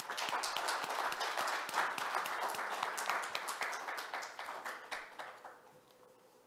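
An audience applauding, a round of clapping that fades out about five seconds in.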